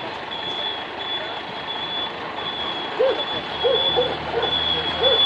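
Truck's reversing alarm beeping in a steady repeating run of high beeps. A low engine hum comes in after about three and a half seconds, along with a few short rising-and-falling sounds.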